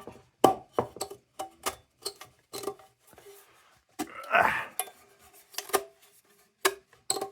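Sharp metal clinks and knocks, many in a row, from a vintage Delta Powerlight battery lantern's body being gripped and twisted open, with a short scrape about four seconds in.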